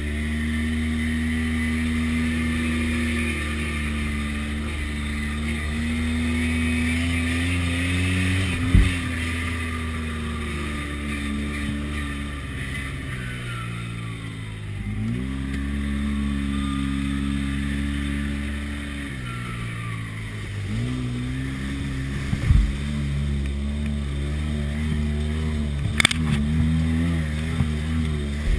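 Side-by-side UTV engine running as it drives a rough dirt trail, its note dropping and climbing back a few times as the throttle is eased and reapplied. A few sharp knocks cut through, and water splashes against the machine near the end.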